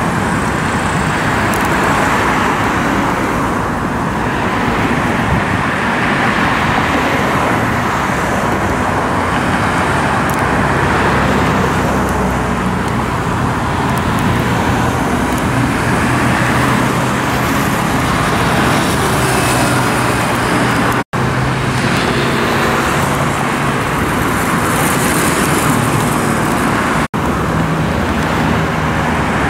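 Heavy road traffic passing close by: cars, pickups, a truck and small motorcycles, a steady rush of tyre noise with engine hum beneath. The sound drops out for an instant twice, about two-thirds of the way in and near the end.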